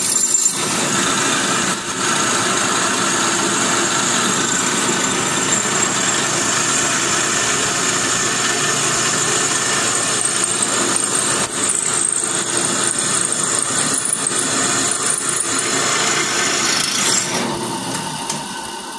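Speedway Motors benchtop drill press running steadily as its quarter-inch bit drills through a cast metal skull air cleaner housing. The sound dies down over the last couple of seconds.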